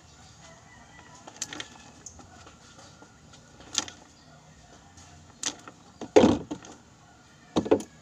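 Irregular sharp clicks and clacks from pliers clamping a wire connector on the washing-machine motor's wiring, handled right at the microphone, with a louder clatter about six seconds in and a quick double click near the end.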